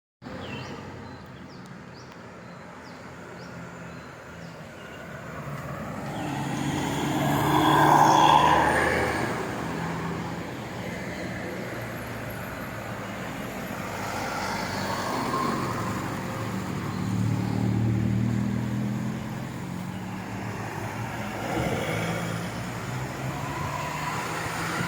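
Road traffic: motor vehicles driving past one after another, the loudest passing about eight seconds in, with smaller passes later.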